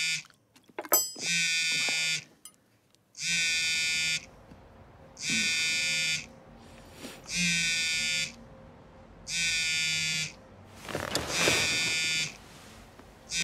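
An electronic buzzer sounding over and over, a harsh buzz of just under a second repeating about every two seconds.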